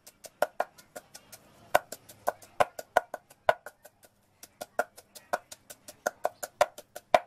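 Wooden pestle pounding chilies and garlic in a mortar into a chili paste: a quick run of knocks, about five a second and uneven in strength, with a short pause about four seconds in.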